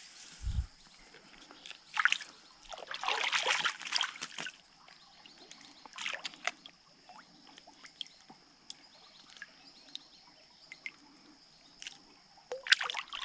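Creek water splashing and sloshing in irregular bursts, the longest about three to four seconds in, with small drips and ticks between them.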